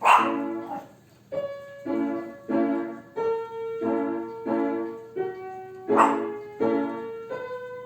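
Piano played at a slow, even pace, notes and chords struck about twice a second under a held melody line. A dog barks twice, at the very start and about six seconds in.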